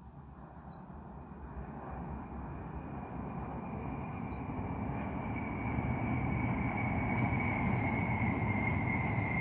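Hitachi ETR 1000 high-speed electric train approaching, its rushing rumble and a steady high whine growing steadily louder.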